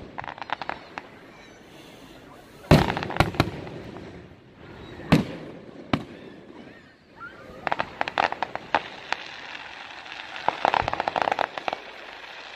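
Aerial firework shells bursting overhead: sharp booms, the loudest a little under three seconds in and two more around five and six seconds, with rapid crackling from the bursting stars in between and in dense runs near eight and eleven seconds.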